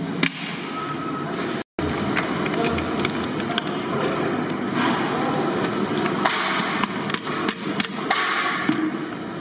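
Busy kitchen clatter: irregular knocks and clanks of utensils and vessels over a steady background noise, with a brief dropout in the sound near two seconds in.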